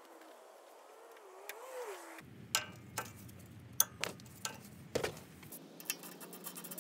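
Metal hand tools clicking against the upper ball joint's castle nut and cotter pin on a Toyota Sequoia's front suspension. From about two seconds in there are a handful of sharp, irregular clicks.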